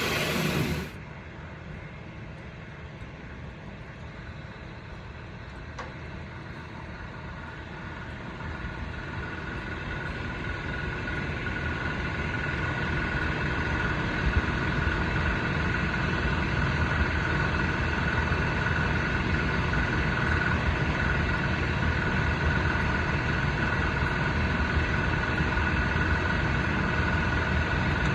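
Welding along a steel seam of a drag car's driveshaft enclosure, a steady crackling sizzle that grows louder and then holds.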